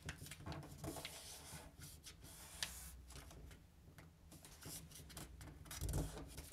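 Faint rustling, rubbing and small taps of a sheet of A4 paper being folded and creased by hand, with a soft thump near the end.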